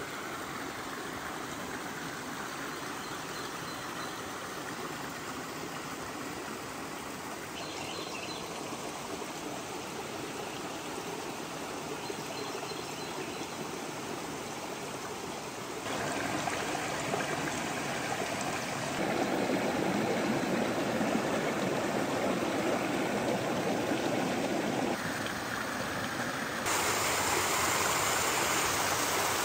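Mountain stream running over rocks and small cascades: a steady rush of water that gets louder in steps, about halfway through and again near the end.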